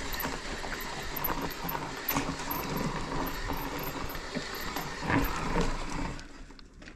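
Electric mountain bike rolling down a dirt trail: the rear freehub ratchet clicks as the rider coasts, over tyre and frame rattle. A couple of louder knocks come about five seconds in, and it goes quieter near the end.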